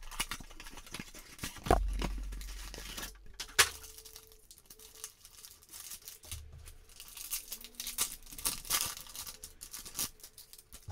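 Cardboard trading-card blaster box being torn open, with a few sharp tearing strokes in the first few seconds, then foil card packs crinkling as they are pulled out and handled.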